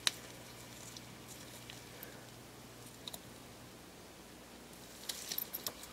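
Faint clicks and ticks of small plastic and metal parts of a disassembled Panasonic Lumix ZS19 camera being handled: a sharp click at the start, a couple of ticks about three seconds in, and a quick cluster of clicks near the end.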